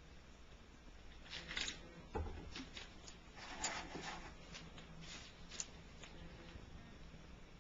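Faint rustling and scraping handling sounds with a few sharp clicks, in three short bursts over a low steady hum.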